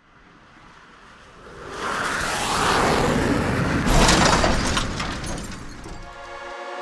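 A swelling rush of noise that peaks in a crash-like shattering burst about four seconds in, then dies away; sustained musical notes come in near the end.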